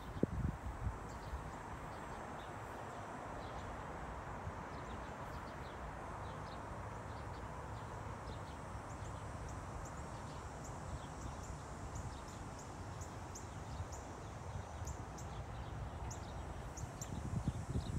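Outdoor park ambience: a steady background hum with short high chirps from insects and birds repeating throughout. A few footsteps on the paved path can be heard at the start and again near the end.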